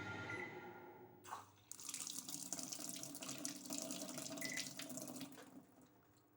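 Toshiba 8 kg washing machine in test mode: its hum dies away in the first second, then after a sharp click water rushes and splashes into the machine for about four seconds and cuts off.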